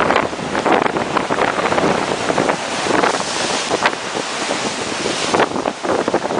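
Storm waves surging and breaking, with strong wind buffeting the microphone. The hiss swells louder between about three and five seconds in.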